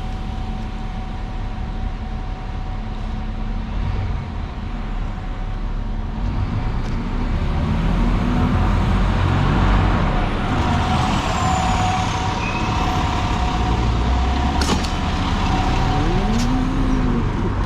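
Riding an e-bike: wind on the microphone and road noise, with a steady thin hum. The noise swells for a few seconds mid-way, and there are a couple of sharp clicks near the end.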